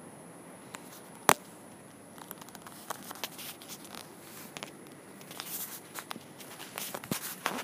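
One sharp click about a second in, then a scatter of small knocks, taps and rustles: handling noise from a hand-held phone camera being moved and carried, with footsteps.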